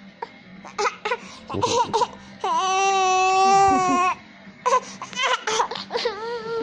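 A baby vocalizing: a few short sounds, then one long, steady, high-pitched wail lasting about a second and a half from about two and a half seconds in, then more short sounds that fall in pitch.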